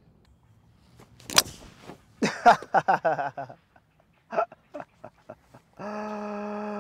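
A golf club strikes the ball on a full swing off the tee with one sharp crack, followed by brief voices. Near the end a steady hum holds for about two seconds.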